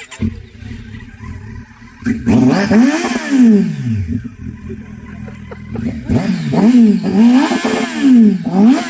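Kawasaki Z900 inline-four engine idling and being revved on the throttle: one long rev about two seconds in that rises and falls back to idle, then a run of five or so quick throttle blips from about six seconds in.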